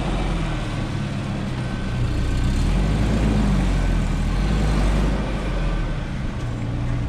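Toyota Land Cruiser Prado 4x4's engine running steadily under load as it crawls slowly through deep mud.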